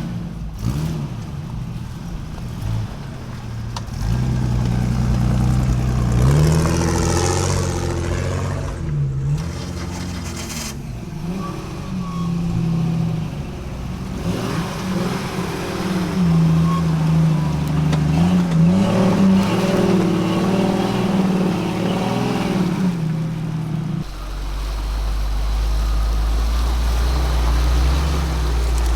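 Off-road vehicle engines revving up and down under load, in several short clips cut together, ending with a steady low engine drone.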